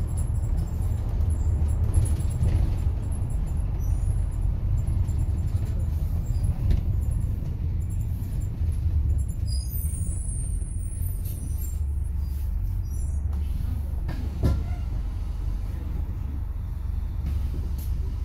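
Steady low engine and road rumble inside a moving bus, with faint high squeaks and rattles of the cabin around the middle and a single knock about fourteen seconds in.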